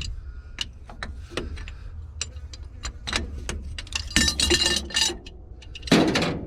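Metal hand tools clinking and clanking against the excavator's hydraulic fittings: a run of sharp clicks and ringing metallic clinks, thickest around the middle, with a louder clatter near the end.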